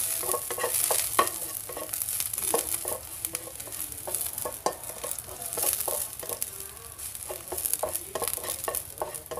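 Chopped garlic sizzling in hot oil in a wok, frying until fragrant, while a spatula stirs it, scraping and tapping against the pan in quick irregular strokes.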